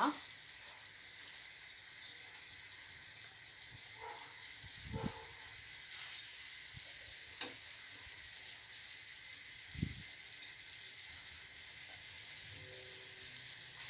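Chicken and onions frying in oil in a clay tajine: a steady, soft sizzle. Two soft knocks come as whole zucchini are laid into the pot, about five and ten seconds in.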